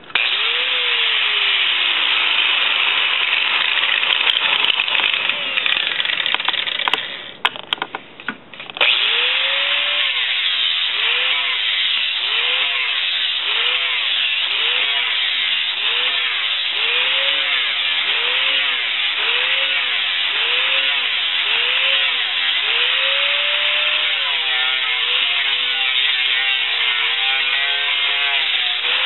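Angle grinder with a perforated sanding disc sanding a wooden block, a loud continuous abrasive grinding. Partway through it briefly drops away and stutters as the disc comes off the wood. Then it resumes, the motor's pitch dipping and recovering roughly once a second as the disc is pressed into the wood in repeated passes.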